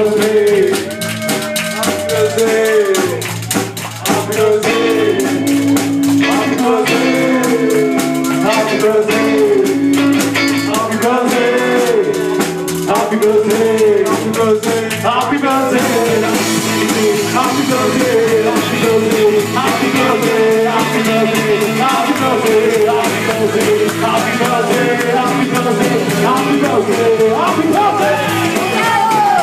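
Live band playing: electric hollow-body guitar over a drum kit and a washboard, loud and continuous.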